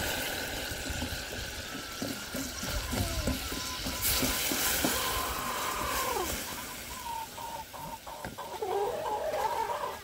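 Hens clucking with short falling calls, more of them near the end, over a steady low background noise.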